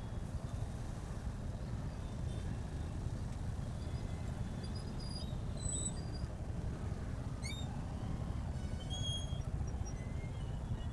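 Motorcycle riding along, its engine and road noise a steady low rumble on the bike-mounted camera. Scattered short high chirps come through, with a quick rising whistle about seven seconds in.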